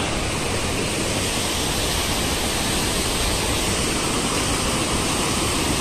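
Sea water washing, heard as a steady, even rush with no breaks or separate splashes.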